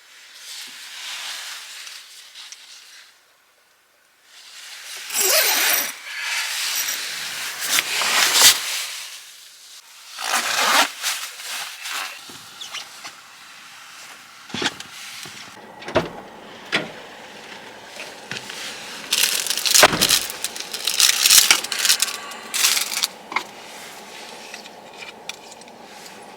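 Rustling and scraping of things being handled, broken by several sharp knocks and clicks; a steady low hum sets in near the end.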